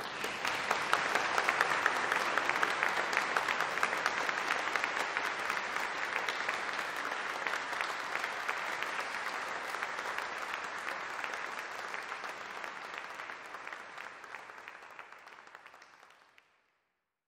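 Audience applauding, dense clapping that fades gradually to silence near the end.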